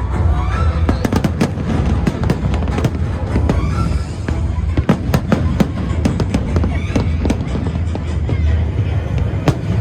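Fireworks bursting in quick succession, many sharp cracks and bangs over a low rumble, with music playing alongside.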